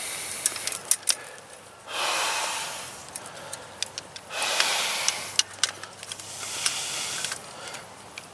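Heavy breathing of a man straining at fencing work: about four long hissing breaths, one every two seconds or so. Between them come many sharp clicks and ticks from the barbed wire and tools being handled.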